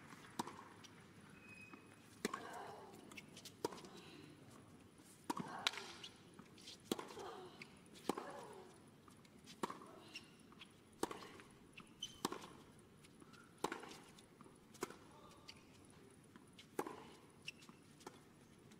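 Tennis rally on a hard court: a racket striking the ball about every second and a quarter, some hits sharper and nearer than others, with short squeaks of shoes on the court between shots.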